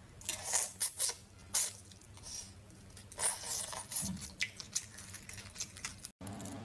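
Close-up wet eating sounds of boiled crayfish: the meat being sucked and chewed, with short irregular crackles of shell being pulled apart by hand. The sound cuts off abruptly near the end.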